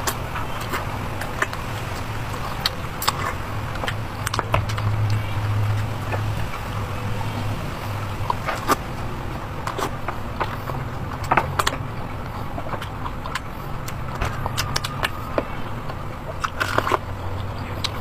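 Close-miked eating sounds: chewing and mouth clicks at irregular intervals, over a steady low hum.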